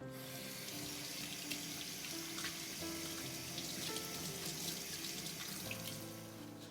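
Water running from a tap into a sink, starting suddenly and cutting off suddenly, over soft background music.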